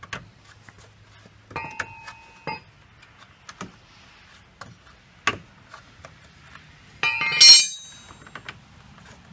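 Plastic wheel cover being pulled and pried off a minivan's steel wheel: scattered plastic clicks and knocks, a couple of brief metallic clinks about a second and a half in, and a loud clattery snap with high ringing about seven seconds in.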